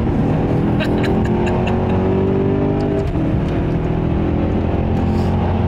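The 2009 Maserati GranTurismo S's 4.7-litre Ferrari-derived V8, heard from inside the cabin, pulling up through the revs under acceleration. About three seconds in, the F1 single-clutch gearbox shifts: the engine note breaks and drops, then climbs again in the next gear.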